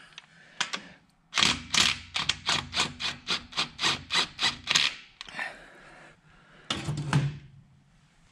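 A hand tool working on the engine in a quick, even series of about a dozen strokes, roughly three a second, then a fainter stroke and two more a couple of seconds later.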